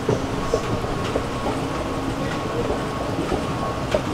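Metro station escalator running: a steady mechanical rumble and hum, with irregular clacks from the moving steps.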